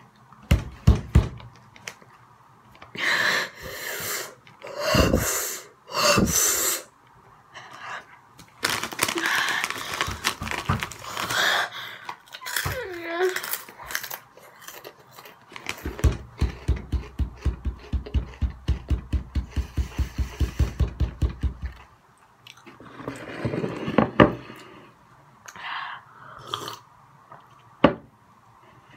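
A boy's pained reactions to the burn of spicy hot Cheetos: sharp, hissing breaths, gasps and a short falling whine. Around the middle comes a run of rapid, even thumps, about six a second, lasting several seconds.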